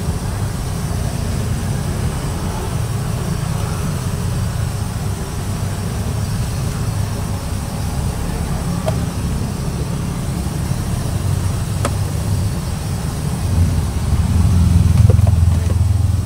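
Steady low rumble of the gas burner under a large street-stall wok of simmering capcay sauce, swelling louder for a couple of seconds near the end.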